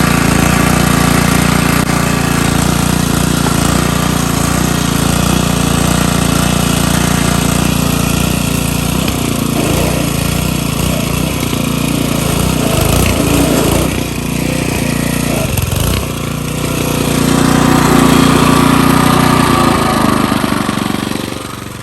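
Small petrol engine running loudly, its note wavering and straining in the middle as the load changes, then swelling before it falls away near the end.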